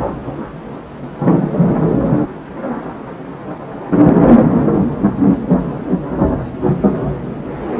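Thunder rumbling in two rolls, the first about a second in and a louder, longer one from about four seconds that breaks up into crackling pulses as it fades, over steady rain.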